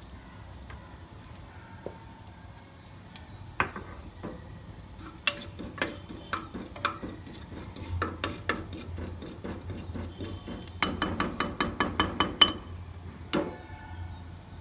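Metal spoon stirring cumin seeds in hot ghee in a pressure cooker, with the seeds sizzling. Scattered clinks and scrapes of the spoon on the pot, then a quick run of rapid strikes, about eight a second, for a second and a half near the end.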